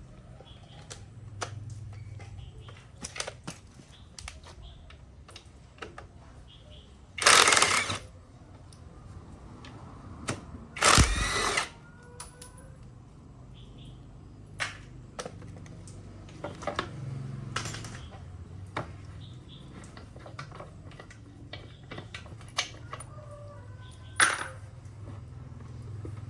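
Hand tools clinking and tapping on metal engine parts in scattered clicks. There are two louder noisy bursts of about a second each, a third of the way in and shortly after, and another sharp knock near the end.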